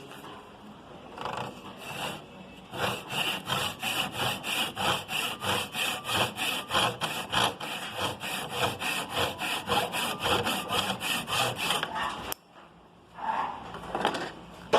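Handsaw cutting across a wooden board, sawing down to half the wood's thickness for a half-lap joint. A couple of starting strokes, then steady back-and-forth strokes at about three a second, stopping abruptly near the end.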